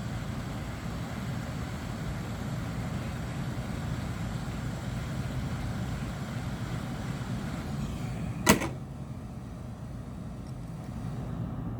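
Steady whir of the electric heating tool used to soften phone-screen adhesive. A single sharp click comes about eight and a half seconds in, after which the sound is quieter and duller.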